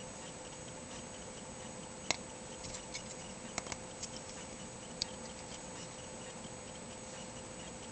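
Small metallic clicks and snaps from a Spyderco Paramilitary folding knife being worked by hand, its CPM-D2 blade folded and swung open on the compression lock. A sharp click about two seconds in is the loudest, a cluster of lighter clicks follows, and another sharp click comes about five seconds in.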